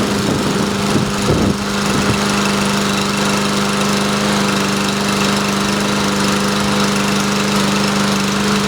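A Briggs & Stratton push lawn mower's small single-cylinder engine running steadily at an even pitch.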